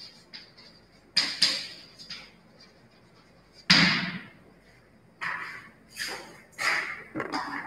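Chalk knocking and scraping on a blackboard as words are written, with separate sharp knocks and thuds. The loudest comes about four seconds in, and a cluster of thumps follows near the end.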